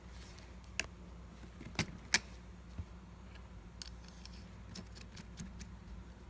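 Scattered light metallic clicks and taps of small skateboard hardware being handled while a wheel, sprocket, spacer and bearing are fitted back onto the axle, the two loudest about two seconds in, over a faint low hum.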